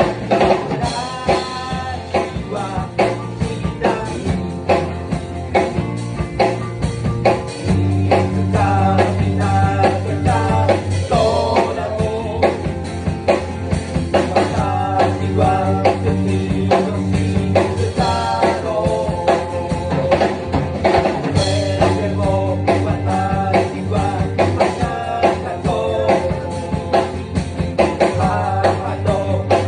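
Rock band playing: drum kit, guitar and bass with a voice singing. The bass notes grow heavier about eight seconds in.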